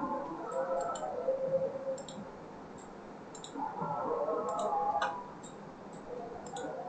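Computer mouse button clicking a dozen or so times at an irregular pace, short sharp clicks while objects are picked one after another on screen.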